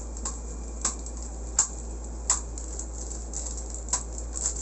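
Plastic Hot Wheels track pieces being handled and clicked together: about six short, sharp clicks and taps at irregular intervals, over a steady low hum.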